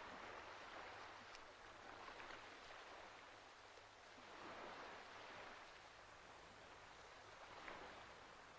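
Near silence: faint background ambience, a soft hiss that swells gently a couple of times, with a light click near the end.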